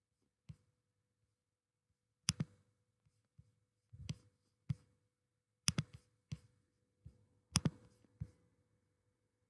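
Computer mouse clicking about ten times at an uneven pace, some clicks coming in quick pairs, over a faint steady hum.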